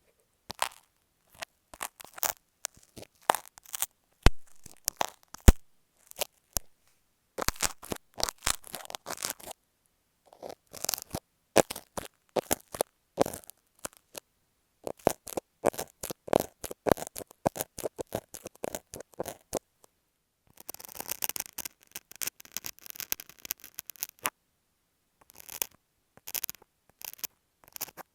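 Close-up ASMR triggers on earphone microphones: marking pins and masking tape rubbed and tapped against the mics, giving irregular sharp clicks and scratches. About twenty seconds in it turns to a denser, continuous scraping of a box cutter and masking tape, then back to scattered clicks.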